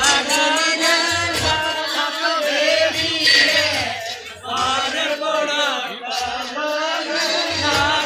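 Song playing: singing voices over a low bass beat.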